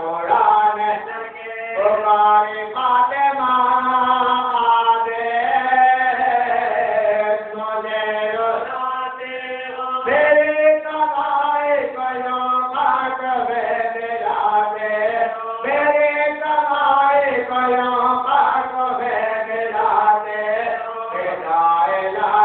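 A man's voice chanting a melodic recitation, long held and bending notes in phrases with short breaks between them.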